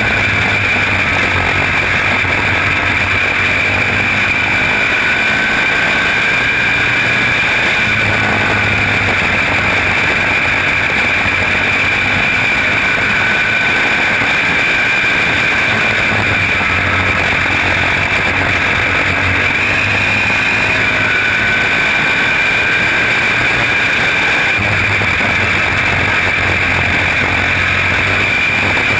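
Senior Champ racing kart's engine running hard at race speed, heard onboard under a loud, steady rush of noise. The low engine note swells and eases in a repeating cycle every several seconds as the kart laps the track.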